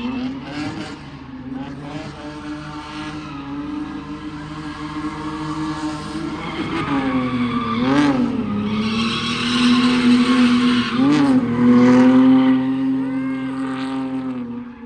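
A car engine held at high revs through a drift, its note dipping briefly twice, with tyres screeching loudest in the second half.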